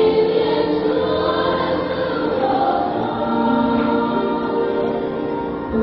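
Choir singing a hymn, the voices holding long sustained notes.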